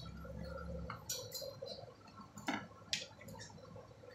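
Hair tools and salon product bottles clicking and clinking as they are handled and set down, with a few sharp knocks about a second in and again around two and a half and three seconds in.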